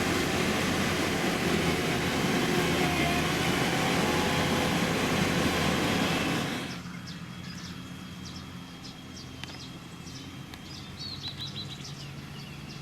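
Diesel engine of heavy road-construction machinery running loudly and steadily. About six and a half seconds in, it drops suddenly to a quieter low engine hum, with birds chirping over it.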